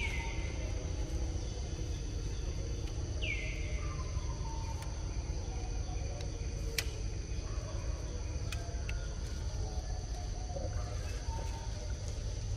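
Forest ambience: a steady high insect drone over a low steady rumble, with two sharp descending bird calls, one at the start and one about three seconds in, and a couple of brief clicks near the middle.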